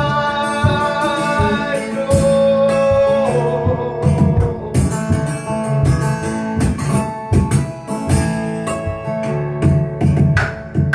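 Solo acoustic guitar played fingerstyle in an instrumental passage: many quick, sharp plucked notes over a repeating bass line.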